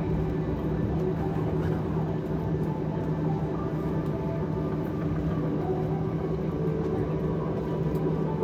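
Jet airliner cabin noise while taxiing after landing: a steady engine hum and rumble with constant droning tones.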